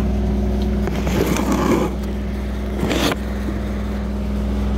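A machine running with a steady low hum, and rustling and bumping of the phone being handled about a second in and again about three seconds in.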